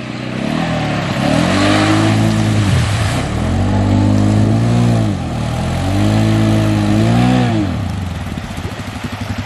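Polaris Sportsman 570 ATV's single-cylinder engine revving up, holding and easing off three times as the quad ploughs through water, with a rush of splashing water at the first rev.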